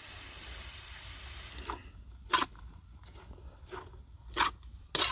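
Metal cooking utensil tapping and scraping against a wok as pancit noodles and cabbage are stirred: a few separate sharp clicks over a low steady rumble.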